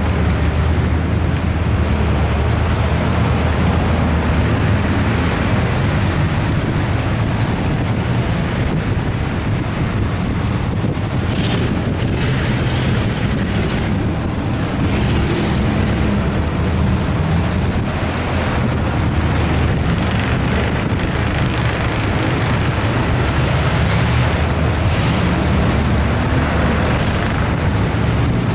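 Vehicle engine running steadily at low speed, heard from inside the cab while driving over a rough dirt trail, with a brief clatter a little under halfway through.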